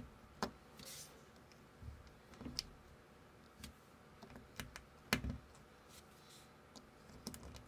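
Plastic building-brick pieces clicking and snapping as they are pressed onto a round baseplate: scattered sharp clicks at irregular intervals, the loudest about five seconds in.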